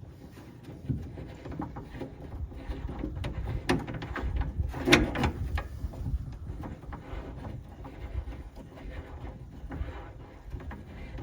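Clicks and knocks of a metal fitting being handled and screwed into a pickup's bed rail, with one louder clunk about five seconds in.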